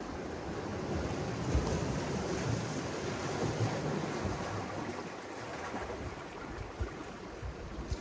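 Sea surf washing against the shore in a steady rush that gradually fades, with wind buffeting the microphone in occasional low thumps.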